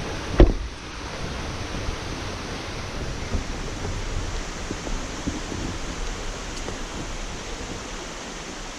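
Steady rushing of a mountain creek, an even hiss with no letup, with a single thump about half a second in.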